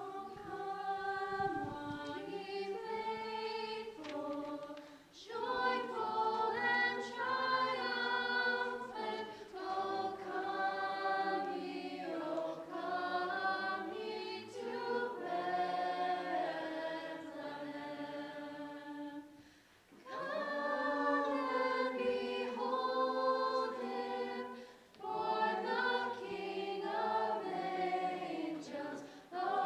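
An a cappella vocal group singing a Christmas carol in several-part harmony, with short breaks between phrases.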